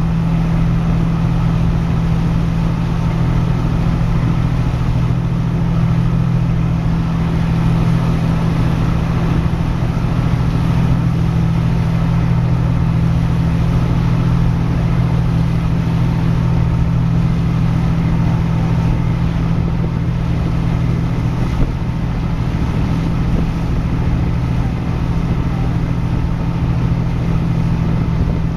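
Engines of the passenger ferry Ile de Vacances II running steadily under way, a loud unchanging low hum with the hiss of water and wind over it.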